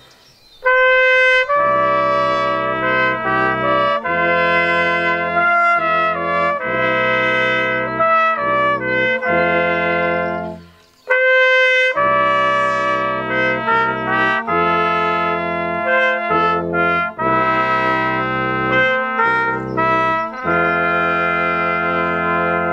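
Brass quartet of two trumpets, a horn and a tuba playing a slow chordal piece in two phrases. Each phrase opens with a lone held note before the full group joins in, with a short pause before the second phrase about eleven seconds in.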